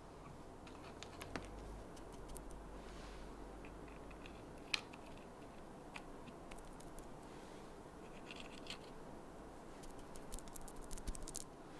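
Light clicks and scrapes of small laser-cut wooden panels being handled and set into a wooden frame, with a quick run of clicks near the end.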